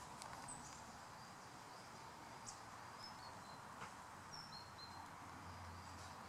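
Quiet outdoor background with a few faint, short, high bird chirps and a couple of light clicks. A faint low hum comes in near the end.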